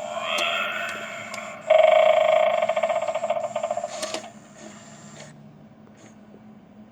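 Haunted doorbell Halloween prop playing a spooky sound effect through its small speaker: a tone rising in pitch, then a louder, rapidly pulsing warble from about two seconds in that fades out by about five seconds.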